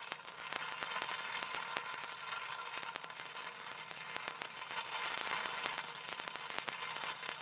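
Massed burning matchsticks crackling, with a rapid, irregular scatter of small pops over a faint steady hiss.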